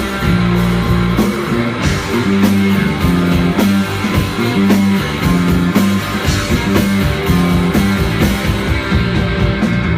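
Live rock band playing an instrumental passage with no vocals: electric guitar, bass and drums, with a bass riff that repeats.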